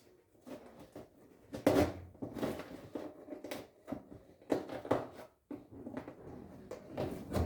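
Irregular knocks and clunks of objects being handled and set down, about half a dozen spread across several seconds.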